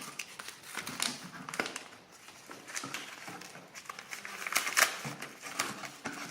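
Packing material being handled and pulled from a shipping box: irregular crinkling and rustling, loudest about four and a half seconds in.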